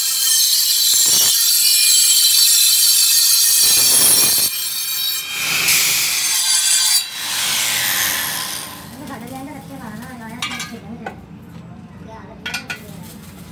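Handheld angle grinder pressed against a steel tractor wheel rim turning in a lathe: a loud hissing grind with a high whine. It breaks off briefly about four seconds in and dies away about eight seconds in. After that the lathe runs with a low hum and a few sharp metal clicks.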